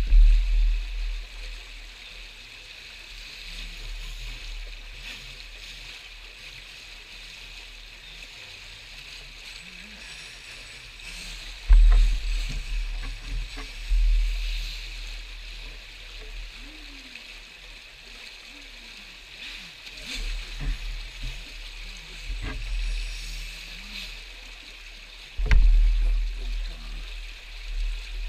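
Fast-flowing rocky stream rushing steadily over stones, with several sudden low rumbles, loudest about twelve seconds in and again near the end.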